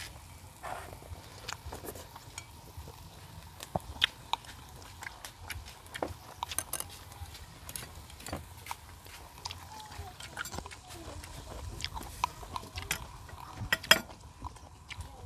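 Close-miked eating: chewing and mouth sounds, with scattered sharp clicks of chopsticks against bowls and the grill pan. The loudest clicks come about four seconds in and near the end.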